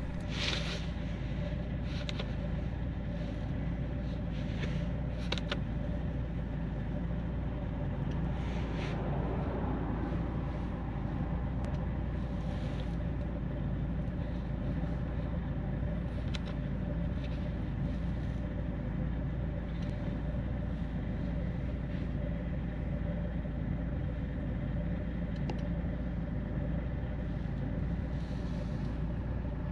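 Vauxhall Zafira's 1.7 diesel engine running steadily, heard from inside the cabin, with a few light clicks now and then.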